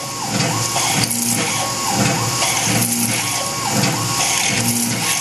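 Tormach PCNC 1100 CNC mill peck drilling with a 5/16-inch drill in sixteenth-inch pecks under flood coolant. The axis drive makes a whine that steps on and off over and over as the drill feeds in and retracts, over a steady hiss of coolant spray and the running spindle.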